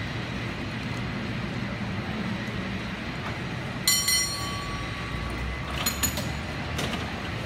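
San Francisco cable car standing at its stop against a steady low rumble. About four seconds in comes a single sharp metallic strike that rings on for about a second, like a bell, and a few smaller metal clinks follow near six seconds.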